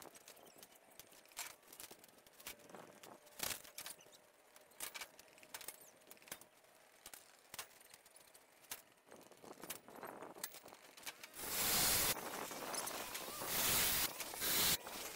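Small metal clicks and clinks of steel framing parts being handled. Near the end, a power drill runs in three short bursts on the steel frame.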